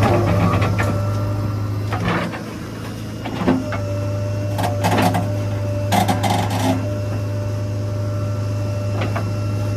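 JCB 3DX backhoe loader's diesel engine running steadily, a low hum with a steady whine over it. Several short clanks and knocks come at intervals, about two, three and a half, five and six seconds in.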